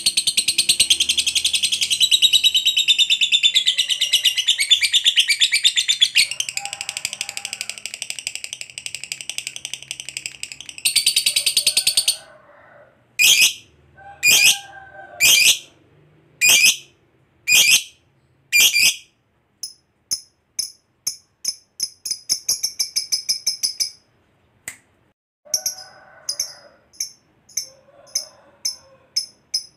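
Lovebird chattering in one long, unbroken shrill trill (the 'ngekek panjang' that keepers prize) for about twelve seconds. Then come six separate sharp calls about a second apart, and then a quicker run of short chirps, about two a second.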